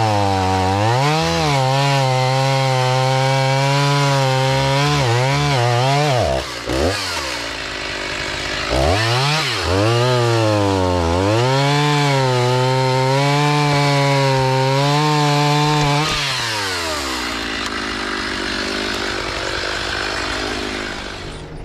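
Stihl MS 290 two-stroke chainsaw cutting through a red oak log, its engine pitch sagging under load and climbing again as it works the cut. The throttle drops back briefly twice about six to nine seconds in. Near the end it is let off and settles to a quieter idle.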